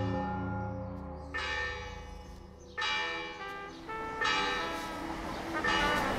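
A church bell tolling: five strokes about a second and a half apart, each ringing on and fading, over a low held tone.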